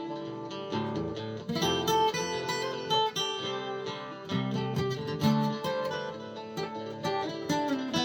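Amplified McPherson Sable Carbon acoustic guitar playing: a looped strummed rhythm with picked lead notes over it, the leads run through a delay pedal.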